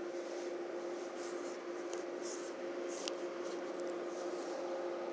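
Faint rubbing and scraping from handling a camera while it is being mounted and set, over a steady two-tone hum.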